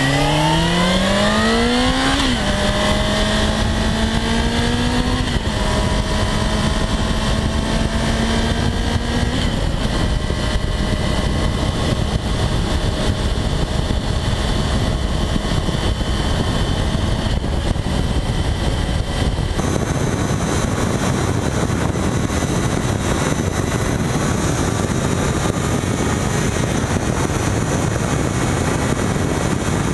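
Motorcycle engine revving up, its pitch dropping sharply at gear changes about two and five seconds in, then running at a steady cruise under a constant rush of wind noise.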